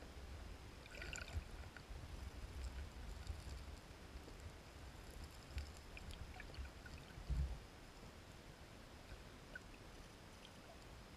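Muffled underwater stream sound from a camera on the gravel bed as spawning sockeye salmon thrash beside it: an uneven low rumble of moving water with irregular bumps, the strongest about seven seconds in. Faint scattered clicks and ticks, like gravel stones knocking together, sound throughout.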